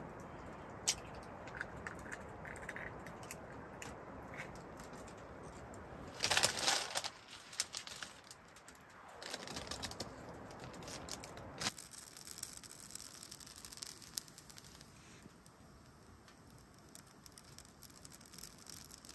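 Quiet cooking sounds: a low hiss from a pan of shakshuka simmering on a small wood stove, with scattered clicks and taps and a short loud rustle about six seconds in. Soft crinkling of a plastic bag of baby spinach follows in the second half.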